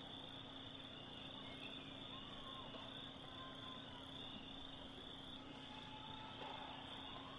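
Faint, steady ambience of a quiet outdoor stadium crowd waiting, with a constant low hum and a steady high hiss, and a few faint distant voices.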